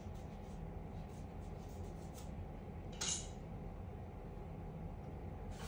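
Steady low background hum with a few faint light taps, and a short rustling swish about three seconds in and again at the end, from a hand handling and tapping a phone.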